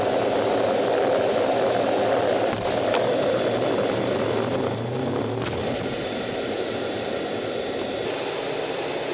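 F/A-18 jet engines running steadily at high power, heard from inside the cockpit during a carrier catapult launch. There are two sharp clicks, about three and five and a half seconds in, and a high whine enters near the end.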